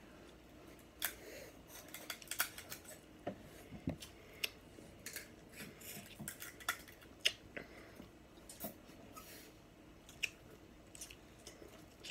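Close-up mouth sounds of eating seafood: chewing with irregular sharp wet clicks and smacks, several a second.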